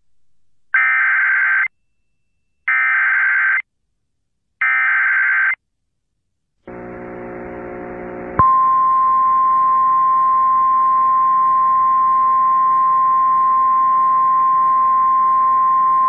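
Emergency Alert System header: three one-second bursts of warbling SAME digital data tones about a second apart. After a quieter hum comes in, a loud single-pitch attention tone, the 1050 Hz weather alert tone, starts about eight seconds in and holds steady.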